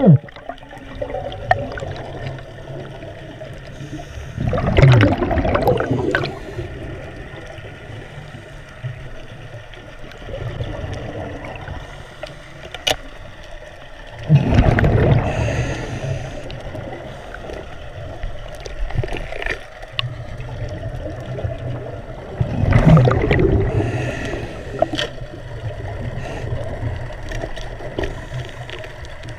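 Scuba diver breathing through a regulator underwater: three gurgling rushes of exhaled bubbles, about nine seconds apart, over a steady low underwater rumble.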